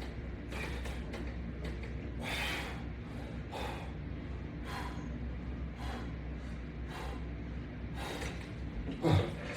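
A person breathing hard while exercising, with short forceful breaths about once a second over a low steady hum.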